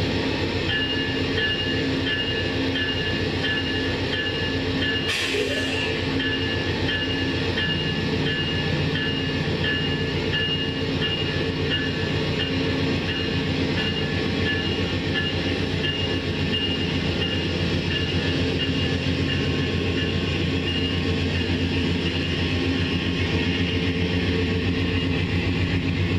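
Amtrak diesel-hauled passenger train moving slowly past, its locomotive engine running steadily. A grade-crossing bell rings rhythmically until about 21 seconds in, and there is a short hiss of air about 5 seconds in.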